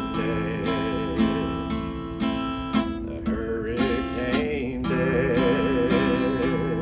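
Acoustic guitar strumming a steady country rhythm in a song's instrumental outro, with a second melody line wavering over it.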